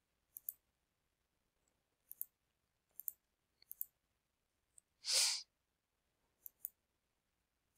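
Computer mouse clicking, mostly in quick pairs of clicks, as objects are selected and moved on screen. About five seconds in comes a short breath into the microphone, the loudest sound.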